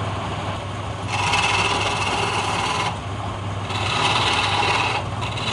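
Wood lathe running with a steady hum while a hand chisel cuts the spinning palm wood, in two scraping passes of a second or two each, the first beginning about a second in.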